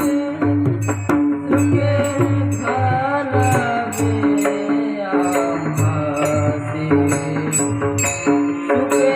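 Marathi devotional Warkari singing: a solo voice carries a bending melody over low hand-drum strokes and a steady beat of small hand cymbals.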